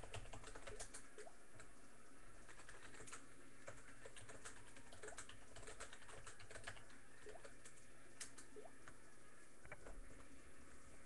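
Typing on a computer keyboard: quick, irregular key clicks that stop shortly before the end.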